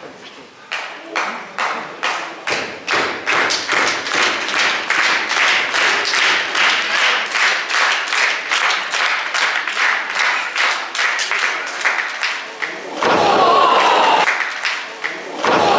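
Audience clapping in unison in a steady rhythm, about three to four claps a second, then a louder stretch of voices near the end.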